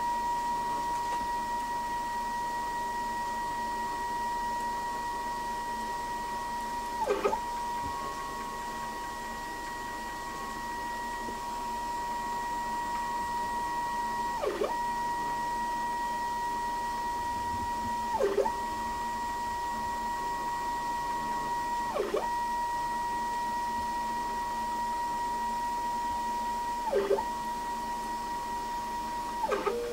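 Stepper motor driving a DIY CNC machine's Z axis up and down: a steady high whine whose pitch drops briefly and comes back each time the axis slows and reverses, six times in all.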